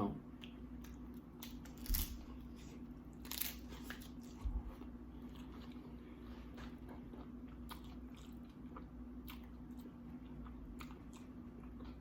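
Close-up crunching and chewing of oven-baked tortilla chips loaded with seafood and cheese. A few loud crunches come in the first five seconds, then fainter chewing clicks, over a steady low hum.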